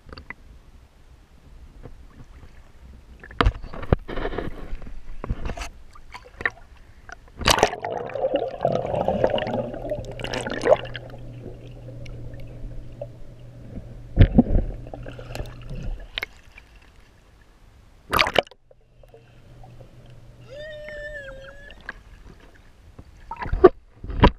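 Pool water heard through a GoPro moving in and out of the water: muffled sloshing and gurgling, broken by several sharp knocks and splashes.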